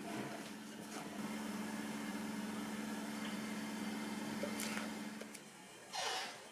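A steady low hum, like a running appliance, under faint taps and scrapes of a wooden spatula folding a thick cream mixture in a glass bowl. The hum cuts off about five and a half seconds in, and a short whoosh follows near the end.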